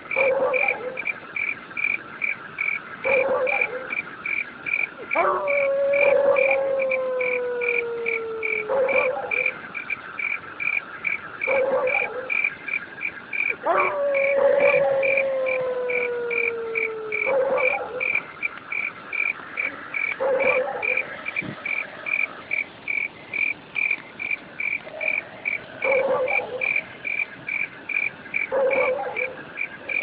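Insects chirping in a steady, even pulse of about two chirps a second. Over them, a long falling tone of a few seconds comes back about every eight seconds, with short lower calls in between.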